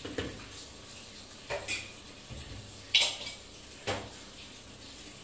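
Cookware clatter: a spatula and other utensils knocking against an aluminium pressure cooker pot, four short sharp knocks, the loudest about three seconds in.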